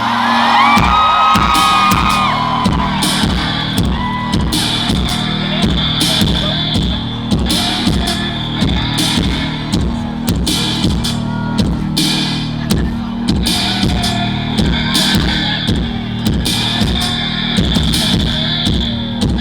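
Live band music in an instrumental stretch: a steady, driving drum beat about twice a second, with guitar and sustained chords over it.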